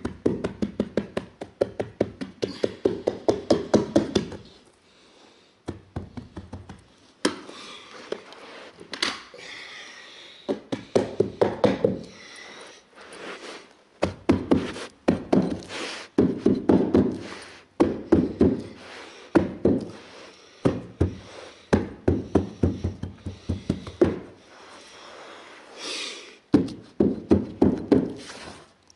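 Runs of rapid knocks, several a second in bursts with short pauses: a hand-held carpet stair tool jabbed again and again into the crease of a carpeted stair step to tuck and set the stretched berber.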